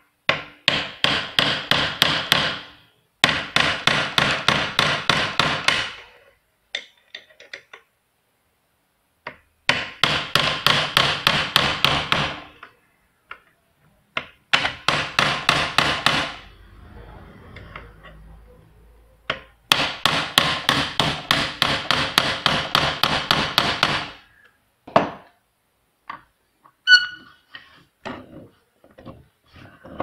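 Hammer blows on a steel punch held against a Volkswagen door-lock housing, metal on metal with a ringing clink to each blow, in five runs of quick taps about five a second with short pauses between and a few single taps near the end. The punch is being driven in to sink and depress the hidden tab that locks the cylinder in the housing.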